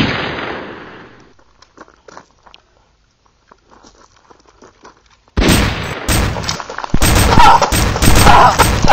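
Gunfire sound effects for a fake pistol. One loud shot fades out over about a second and a half, then a few faint clicks, and from about five seconds in a rapid, continuous string of shots.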